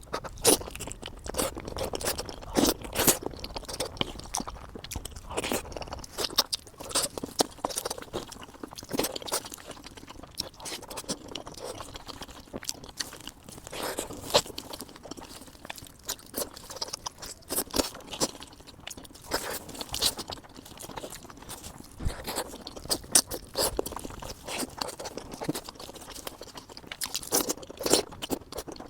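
Close-up eating sounds: chewing and crunching through mouthfuls of chicken biryani, with irregular crisp crunches and occasional scrapes.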